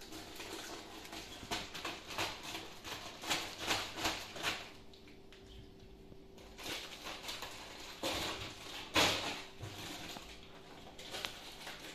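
Rustling and handling noises as fruit in a plastic mesh net bag and a bunch of bananas are moved about on a table, coming in clusters of short scratchy crackles with a lull in the middle and the loudest crackle about nine seconds in.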